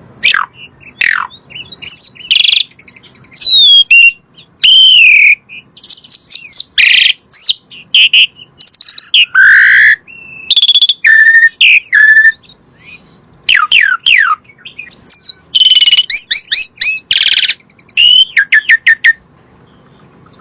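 Asian pied starling singing in full voice: loud, varied phrases of clear whistles, steeply falling slurs and fast chattering trills, separated by short pauses.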